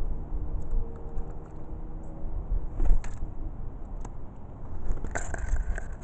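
Steady low rumble, with a few sharp clicks and knocks about three seconds in and again near the end.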